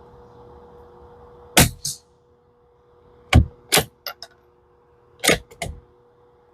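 Suppressed Tikka T1x .22 LR bolt-action rifle: a sharp report about one and a half seconds in, then a run of sharp metallic clacks of the bolt being worked, with two brief light rings just after the middle.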